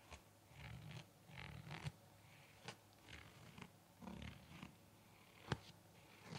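Faint rustling and scratching on a KN95 face mask, with a few sharp taps, the loudest a little past five seconds in.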